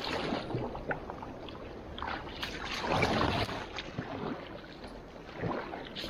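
A raft paddle stroking through river water, dipping and splashing. The loudest, longest splash comes about halfway through.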